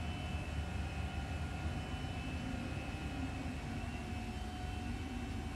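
A steady low rumbling drone with a few faint, steady whining tones above it, unchanged throughout.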